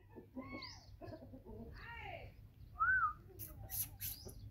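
Chickens giving a few short, arched clucks, the loudest about three seconds in, followed by a quick run of sharp ticks.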